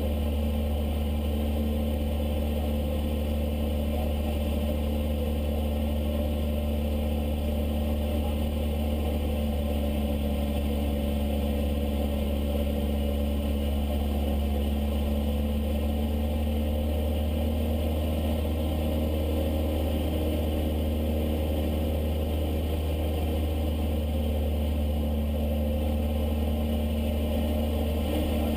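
Steady drone of a high-wing single-engine light aircraft's piston engine and propeller in flight, heard inside the cockpit, with a strong low hum and no change in pitch.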